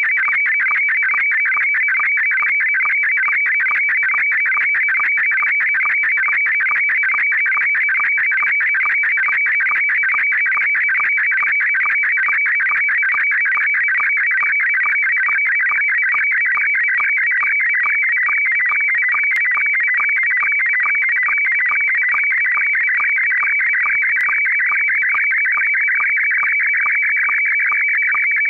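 Slow-scan television (SSTV) signal in Scottie S1 mode: a loud, continuous high warbling of rapidly shifting tones with a fast regular flutter, the audio of a picture being sent line by line. It carries a ham radio QSL reply image being transmitted and decoded.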